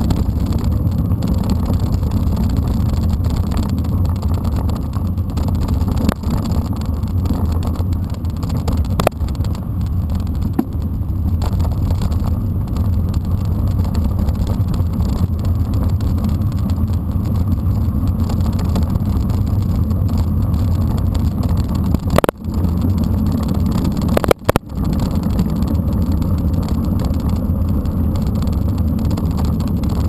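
Steady low rumble of wind buffeting a bike-mounted camera's microphone, mixed with mountain bike tyres rolling over a dirt road, with a few brief knocks from bumps along the way.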